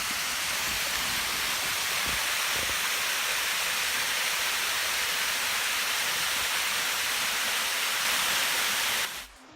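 Steady rush of flowing river water, a constant hiss that grows slightly louder and then cuts off suddenly near the end.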